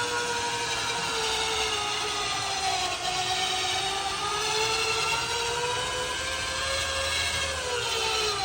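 Motorcycle lift's motor running as it raises a Can-Am Spyder F3 trike, a steady tone that sags slightly in pitch under the load, then stops abruptly at the very end.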